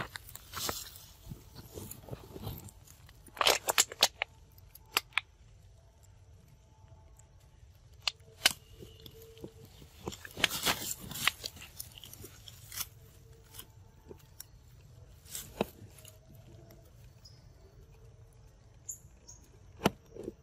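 Macaque eating green plant stems and leaves close by, with irregular sharp crunches and bites amid the rustling of the vines it is handling.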